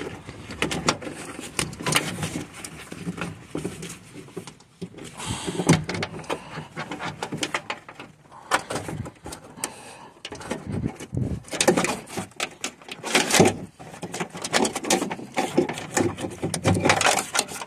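Irregular scraping, rustling and clicking as a wiring harness with its plastic connectors and sheathing is pulled by hand through the hole in a Fiat Bravo II door, rubbing and knocking against the door's metal and trim.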